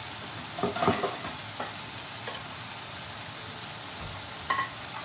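Skin-on chicken thighs sizzling in hot oil in a pan as they brown. A few knocks of a utensil against the pan, the loudest about a second in, and a short clink near the end.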